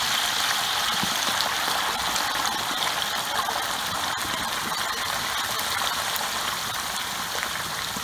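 Whole turkey being lowered slowly into hot frying oil at about 375°F, the oil bubbling and sizzling around it in a steady rush with fine crackles that eases a little toward the end.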